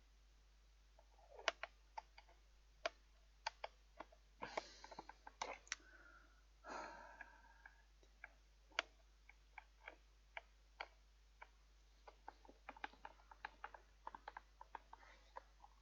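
Small clicks and taps of a screwdriver working a screw into a fan heater's casing, with a couple of brief rustles of handling. From about twelve seconds in, the clicks come quicker, several a second.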